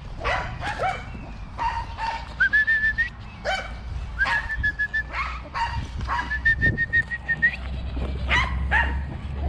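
A dog barking and yipping in short, repeated calls, with three held, high whining tones in between.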